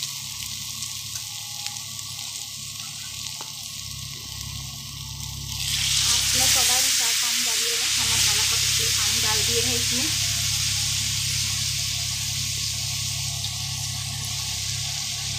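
Potatoes sizzling in hot oil in a steel kadhai. About six seconds in, water is poured into the hot pan and the sizzle jumps to a loud hiss, then keeps on steadily as the masala cooks in the water.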